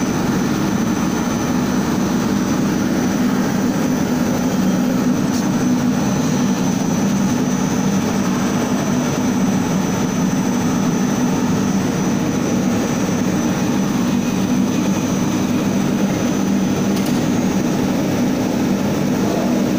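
Compact blown film extrusion plant running: a steady mechanical hum with a thin, constant high whine above it.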